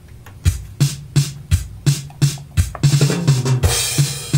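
Roland TR-505 drum machine playing an oom-pa-pa waltz pattern sequenced by an Oberheim Perf/X Drummer: a kick on each downbeat followed by two lighter hits, about one bar a second. A cymbal wash comes in about three and a half seconds in.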